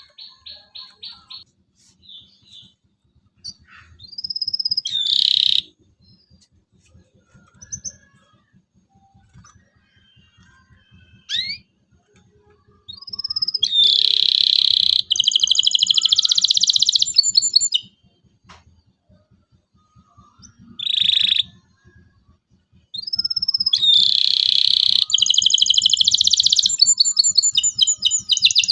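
Domestic canary singing: scattered short chirps and quick rising notes, then two long rapid trills, one starting about 13 seconds in and another about 23 seconds in.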